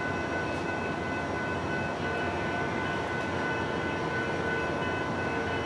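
SunRail commuter train running steadily: an even mechanical noise with a thin high whine of several steady tones over it.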